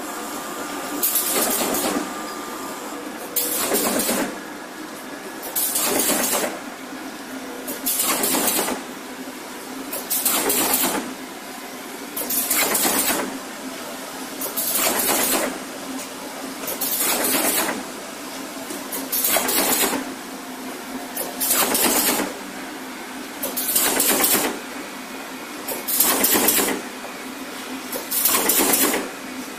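Corrugated box partition assembly machine running through its cycle: a loud burst of noise about every two and a quarter seconds over a steady machine hum.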